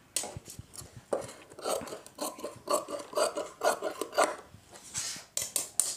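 Tailoring scissors cutting through blouse fabric along a marked boat neckline: a run of short snips, about three a second, with a brief pause about four and a half seconds in.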